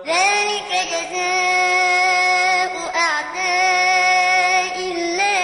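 Quran recitation in the chanted tajweed style: a voice holds long, melodically ornamented vowels, with turns of pitch about a second, three seconds and five seconds in.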